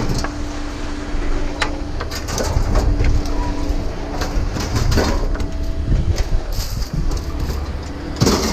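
A vehicle engine running steadily under a scattered series of sharp knocks and clanks as items are handled.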